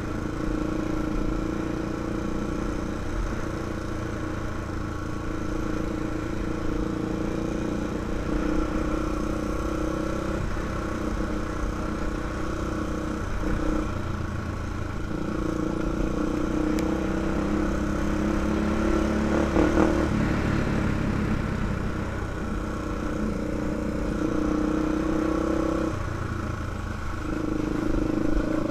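2005 Honda 400EX ATV's single-cylinder four-stroke engine running while riding, its pitch shifting up and down several times with the throttle.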